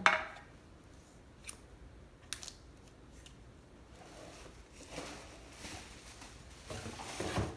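Accessory packaging being handled: a sharp rustle at the start, a couple of small clicks, then a stretch of crinkling and rustling that grows louder near the end.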